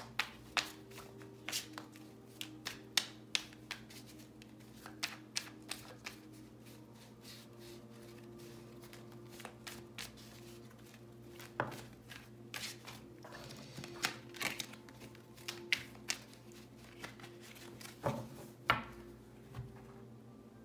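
A tarot deck being shuffled by hand, cards passed from hand to hand: irregular soft slaps and flicks of card on card.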